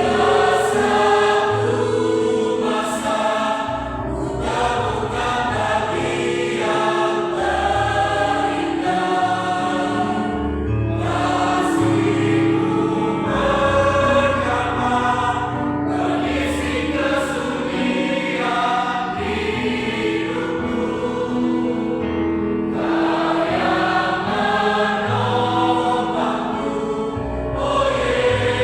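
Choir singing a Christian song in several voice parts, with low accompanying notes held beneath.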